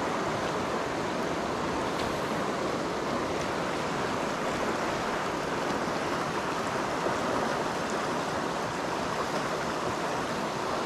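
Shallow river rapids rushing steadily over rocks, a continuous even hiss of fast-flowing water.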